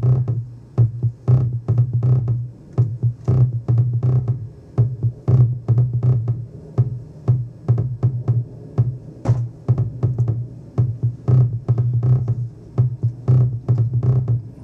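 Electronic drum pattern from an Ableton Impulse drum-sampler kit, sequenced from a monome 256 grid: quick, evenly repeated short hits over a low pulsing tone, looping steadily.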